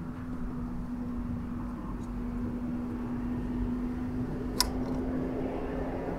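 Gas station fuel pump running with a steady hum while fuel is dispensed. There is one short click about four and a half seconds in.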